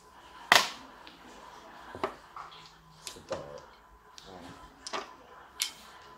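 Mahjong tiles clacking as they are drawn from the wall, set down and discarded on an automatic mahjong table: one sharp clack about half a second in, then a string of lighter clicks at uneven gaps.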